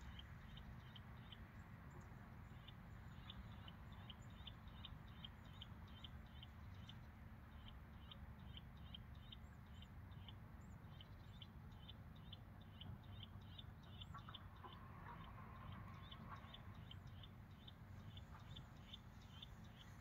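Faint outdoor ambience: a low wind rumble under a steady series of short, high chirps, about three a second, that break off briefly now and then.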